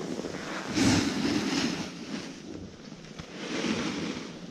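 Scraping hiss of a board sliding and carving over packed snow, mixed with wind on the microphone, swelling louder twice.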